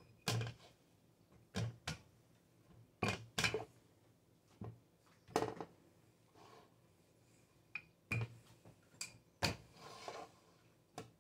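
Wooden rolling pin rolling out dough on a silicone baking mat over an upside-down metal baking pan, with a series of irregular knocks and clunks as the pin and pan shift on the stovetop.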